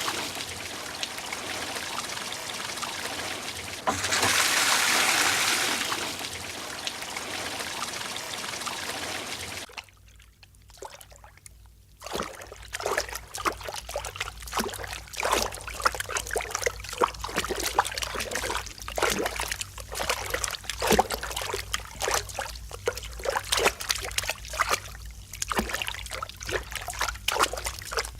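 Water rushing steadily for about ten seconds, then, after a brief drop, an irregular trickle of many small drips and splashes over a low steady hum.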